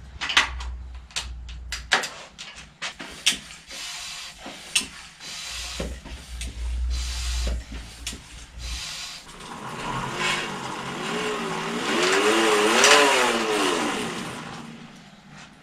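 Clicks and knocks of hand work on a bicycle's rear end. About ten seconds in, a bicycle dynamo is spun by the turning wheel and whirs for several seconds, its pitch rising and falling with the wheel's speed. The dynamo is rusty, with corroded contacts that no longer pass current.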